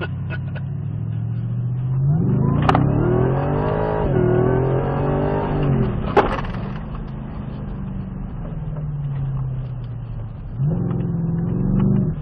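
Ford Raptor R's supercharged 5.2-litre V8 heard from inside the cab, revving up hard from a standstill with its pitch climbing, easing off about six seconds in, and pulling again near the end. Two sharp knocks cut through, about three and six seconds in.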